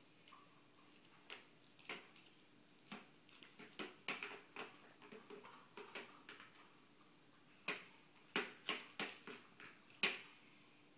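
Small hard plastic toys clicking and knocking together as they are handled, in irregular clusters of taps, the sharpest knock about ten seconds in.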